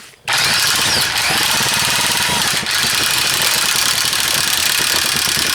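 A power tool running flat out against a Harbor Freight 1/2-inch ratchet in a torture test, the ratchet's mechanism chattering under it. The noise starts suddenly and holds steady for about five seconds. The ratchet is dead and hot just after, its insides ruined.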